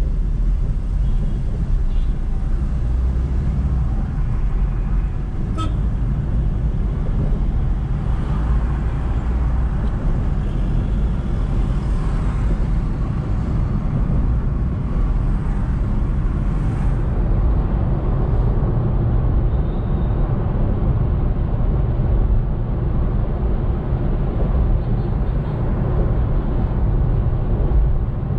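Steady low rumble of a car driving on a city road: engine, tyre and road noise from the recording vehicle. There is a single brief click about five and a half seconds in.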